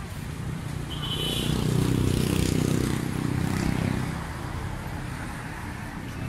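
A motor vehicle passing by, its engine rising in level about a second in and fading away by about four seconds, over a steady low background rumble.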